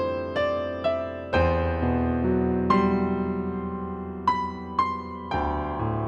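Background piano music: single struck notes ringing and fading, with sustained bass notes below, at a slow, gentle pace.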